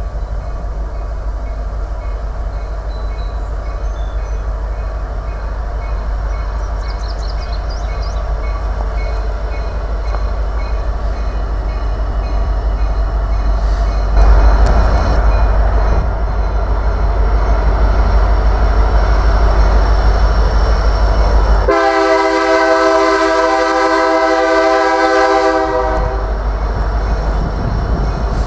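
EMD SD90/43MAC diesel-electric locomotives approaching at the head of a freight train, with a steady low engine and wheel rumble that grows louder. A little over twenty seconds in, the locomotive horn sounds one chord for about four seconds.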